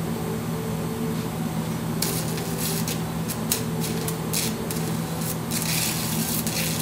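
Stick-welding arc crackling and sputtering as a rod is run on a bearing. The crackle is light at first and grows dense and irregular from about two seconds in, over a steady low hum.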